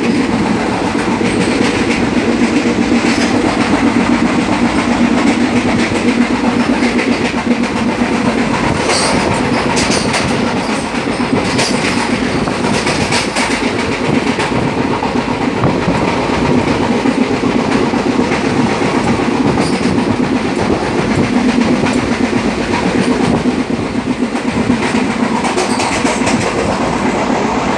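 Running noise of an Indian Railways express passenger coach, heard from inside the vestibule: a steady rumble of wheels on the track with a clickety-clack over the rail joints. A few short, sharp rattles come about nine to thirteen seconds in.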